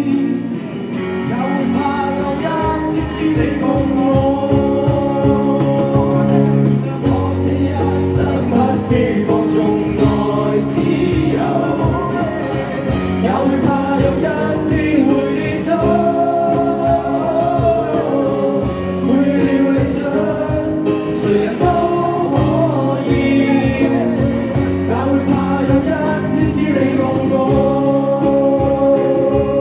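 Live band performing a song: sung vocals over guitar and a steady beat.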